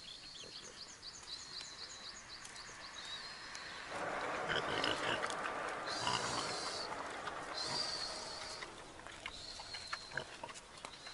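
Large domestic pig grunting as it walks along the road; the sound grows louder about four seconds in and eases off after about nine. A run of quick high chirps sounds in the first few seconds.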